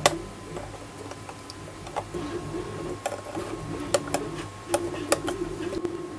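Side cutters snipping off resistor leads on a circuit board: a series of sharp clicks, about six spread over several seconds.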